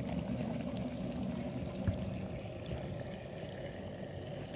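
Freshly boiled water bubbling softly in an open Kenstar 1.6-litre stainless steel electric kettle just after its auto cut-off has switched it off, with one light tick about two seconds in.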